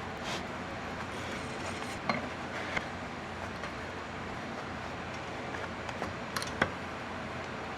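A few light metallic clicks and taps, about six scattered through, over a steady background hiss, typical of small metal tools being handled during sheet-metal work.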